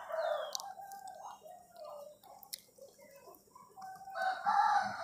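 Chickens clucking, in two spells: one at the start and another about four seconds in, with a few fainter calls between.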